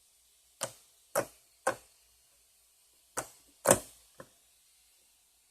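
Six sharp smacks in two groups of three, about half a second apart within each group, each dying away quickly.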